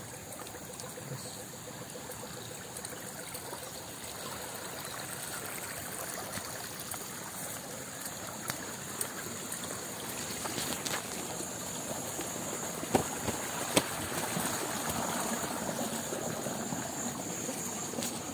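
Flowing stream water, a steady rush that grows louder over the last several seconds, with two sharp knocks about thirteen seconds in.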